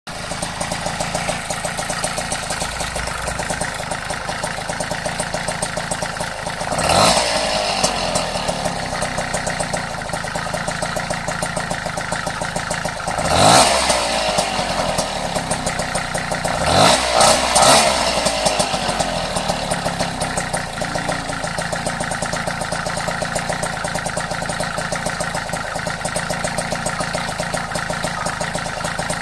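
Vespa Ciao moped's small two-stroke engine idling with a steady ticking. The throttle is blipped once about a quarter of the way in and again near the middle, then three quick blips follow. The ticking is heard only at idle and goes away once the moped is ridden off.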